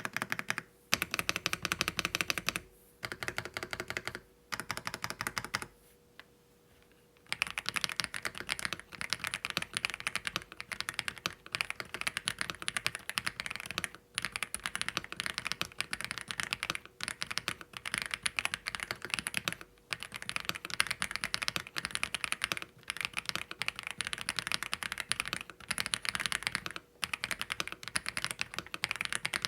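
AULA F87 Pro mechanical keyboard with LEOBOG Graywood linear switches and a polycarbonate plate, being typed on. A few short bursts of keystrokes with brief pauses, a longer pause about six seconds in, then fast, nearly continuous typing.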